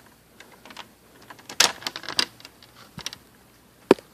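Small clicks and taps of screws and parts being handled on a laptop's plastic case, with a quick cluster of them about a second and a half in and a sharp knock near the end.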